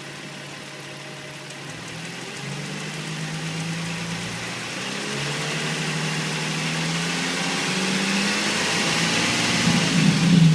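2005 Nissan 350Z's 3.5-litre V6 running at idle with a ticking that the owner places below the intake manifold and suspects comes from the injectors or hydraulic lifters. It grows steadily louder and is loudest near the end.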